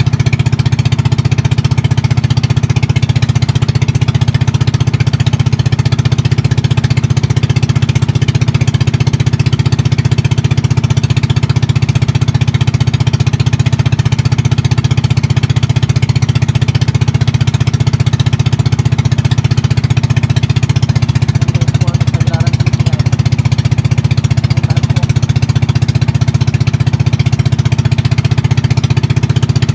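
Small boat's engine running steadily under way, loud, with a fast even beat.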